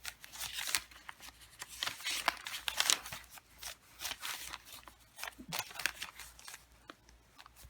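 Pages of a handmade junk journal being handled and turned: irregular rustling and crinkling of paper, fabric and paper-bag pockets, with soft clicks throughout.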